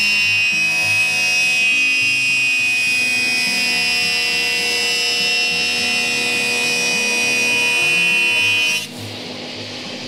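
Background music with a stepping bass line over the steady high whine of a 20-inch SCMI F520 jointer facing a board. The whine cuts off suddenly near the end, leaving the music quieter.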